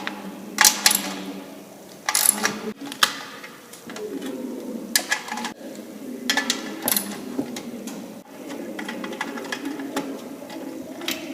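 A socket ratchet turning out small bolts, its pawl clicking in quick runs, with a few sharp metal clinks of the tools and bolts.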